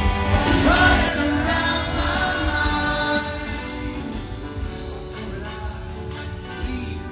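Live rock band playing through the stage PA, heard from among the crowd: guitar, bass and drums, with a singer's voice clearest in the first few seconds.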